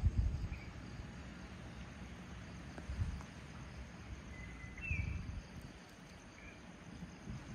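Outdoor nature ambience: a steady background hiss with insects calling, a few short bird chirps around the middle, and low rumbles at the start and again about three and five seconds in.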